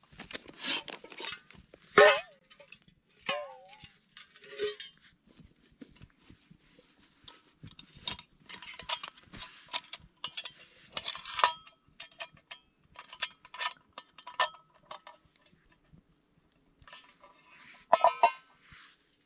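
Irregular clinks, knocks and scrapes of a metal mess tin and spoon being handled, some strikes ringing briefly; the loudest come about two seconds in and near the end.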